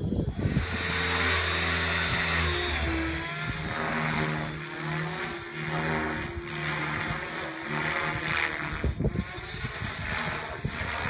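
Radio-controlled helicopter flying overhead, its rotor and motor whine holding steady for the first few seconds, then wavering up and down in pitch as it manoeuvres.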